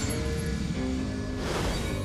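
Action film score with held notes over a steady low pulse, and a sudden noisy fight sound effect, a hit or swish, about one and a half seconds in.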